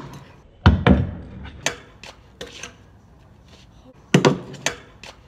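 Stunt scooter wheels and deck banging down on a wooden box and the asphalt: two heavy thuds about a second in and a lighter knock after them, then another hard landing with a second knock near the end, as the rider comes down from a jump.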